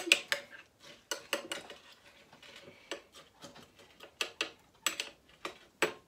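Metal teaspoon clinking and scraping against the inside of a ceramic mug while stirring bird seed into melted lard: irregular sharp taps, about one or two a second.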